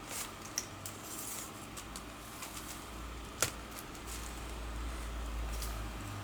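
A few light, scattered clicks and taps from handling the plastic and metal parts of an Asus laptop during disassembly, with one sharper click a little past halfway.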